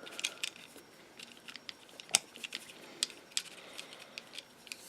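Small plastic parts of a Playmobil RC car's steering gearbox clicking and tapping as they are fitted into place by hand: scattered light clicks, the sharpest about two seconds in and again a second later.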